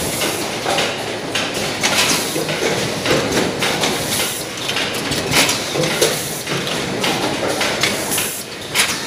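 Automatic cup shrink-packing machine running: its feeding mechanism clacks and knocks irregularly over a steady hiss.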